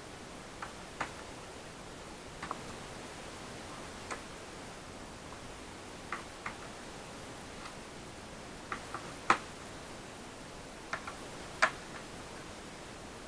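Light, irregular clicks and taps of laptop parts and small tools being handled during disassembly, over a steady hiss; the sharpest tap comes about nine seconds in.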